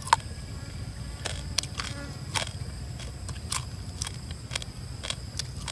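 Irregular sharp clicks and crackles of crisp grilled lizards being torn apart and chewed, the loudest a snap right at the start, over a steady high-pitched insect drone.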